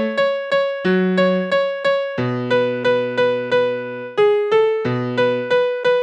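Piano playing a slow hymn-like song: a middle-register melody of evenly struck notes, about three a second, over held low chords that change every second or so.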